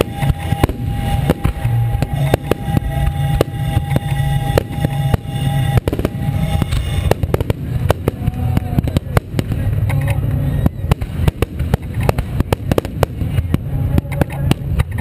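Aerial fireworks shells bursting one after another, a run of bangs and crackles that comes thicker in the second half.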